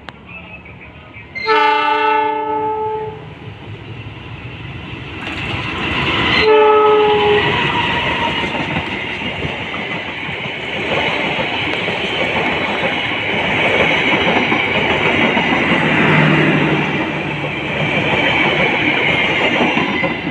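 Pangrango passenger train's diesel locomotive horn sounding twice, a long blast about a second and a half in and a shorter one a few seconds later, followed by the steady rumble and clatter of the train running on the rails, growing louder.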